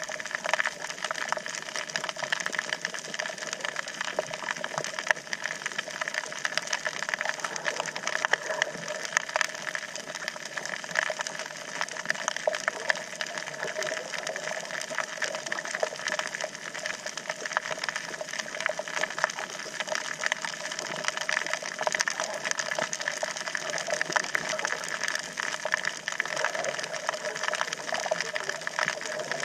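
Underwater sound on a coral reef heard through a submerged camera: a dense, steady crackle of tiny clicks, with a faint steady hum beneath.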